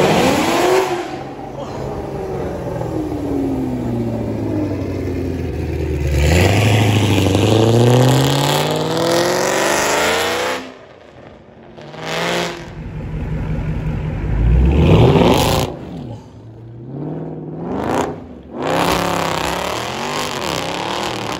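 Several muscle cars accelerating hard away one after another, their engines revving with pitch climbing through each pull. The clips change abruptly several times, and the loudest rev comes about 15 seconds in.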